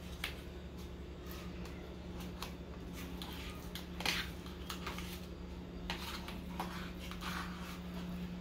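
Scattered light clinks and taps of a utensil against a metal baking tray and dishes, the sharpest about four seconds in, over a steady low hum.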